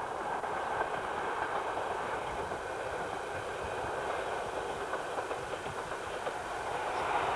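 Distant ALn 668 diesel railcar train running along the line, heard as a steady, even rumble and rail noise that grows slightly louder near the end.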